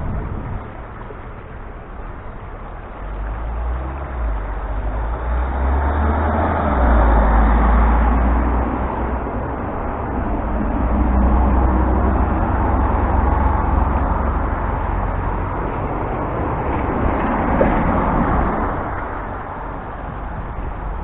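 Road traffic: vehicles passing, the rushing noise swelling and fading about three times over a low rumble.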